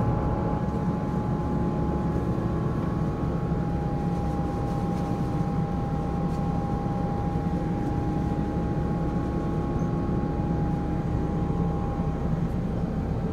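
Steady cabin noise of an Airbus A380 in flight, heard from an upper-deck window seat: the low rumble of its Engine Alliance GP7200 engines and rushing air, with a steady high whine across it.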